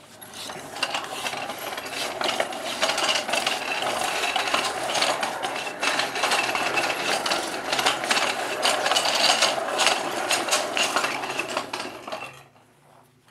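Casters of a steel engine stand loaded with an engine rolling across a tiled floor, with a continuous clattering rattle that stops near the end.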